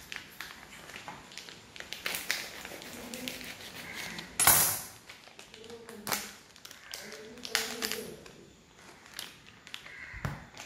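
Plastic paneer packet crinkling and rustling as it is opened and squeezed to push the paneer block out, with small clicks and taps on the wooden cutting board. The loudest crinkle comes about four and a half seconds in.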